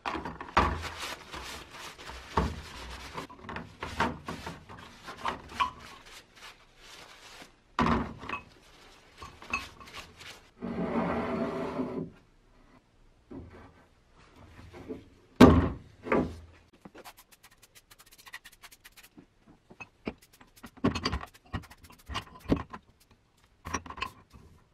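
Knocks and clunks of rusty cast-iron meat grinder (food chopper) parts being handled and set down on a plastic tray, with a short rushing noise about eleven seconds in and a loud knock about fifteen seconds in.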